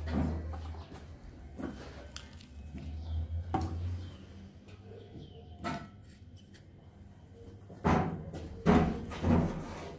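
Small knocks and clicks of TIG welding torch parts (ceramic cup, tungsten electrode, torch body) being handled and fitted with gloved hands, the loudest knocks coming close together near the end. A low steady hum runs under the first few seconds.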